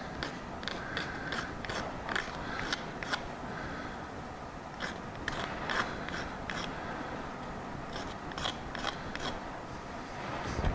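A small hand tool scraping material off a small part in short strokes, about two a second, with a couple of brief pauses.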